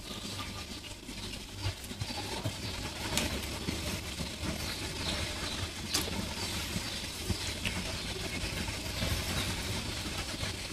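Eating sounds of a mukbang meal of pares and rice: chewing and a few sharp utensil clicks, over a steady low background rumble.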